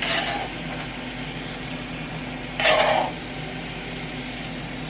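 Sugared banana slices frying in a pan, with two short scraping sizzles as they are stirred or moved with a utensil, one at the very start and one under three seconds in, over a steady low hum.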